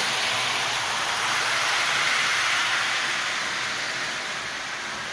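Lionel Silver Spike Amtrak toy train, led by a powered Alco diesel unit, running along the track as a steady rolling rush of wheels and motor. It is loudest as the engine passes close by and grows gradually quieter as the train moves away.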